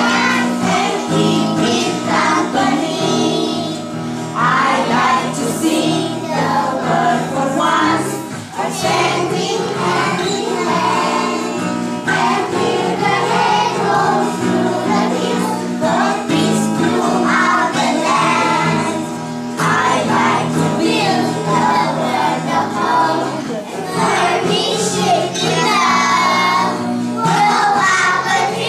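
A group of young children singing a song together over musical accompaniment.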